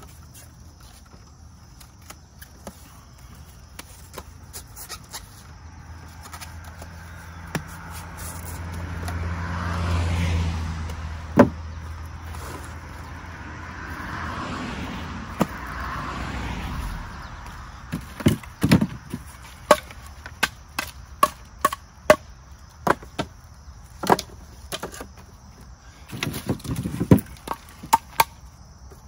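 A vehicle passes, its low hum swelling and fading over several seconds. Then split firewood pieces knock and clatter one after another as they are dropped and stacked into a wooden bundling rack.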